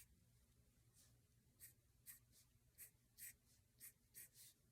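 Faint drawing strokes on paper: about eight short, quick scratches roughly half a second apart as short lines are drawn freehand.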